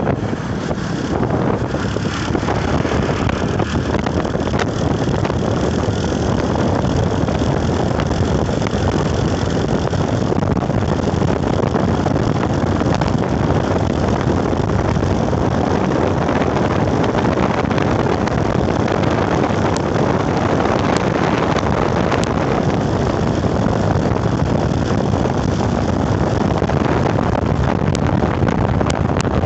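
Steady, loud vehicle noise mixed with wind on the microphone.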